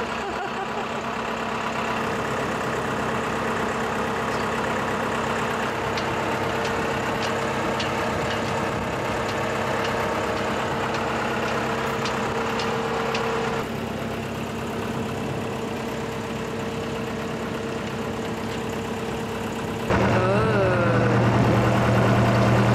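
A boat's Mercedes OM636 four-cylinder diesel running steadily under way at low revs, with a series of light clicks in the middle. Near the end the drone turns deeper and louder.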